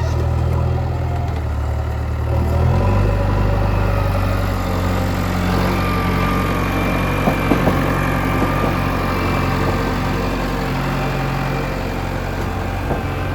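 A JCB 3DX backhoe loader's diesel engine running steadily. Its note shifts about two and a half seconds in, and there are a few short knocks near the middle.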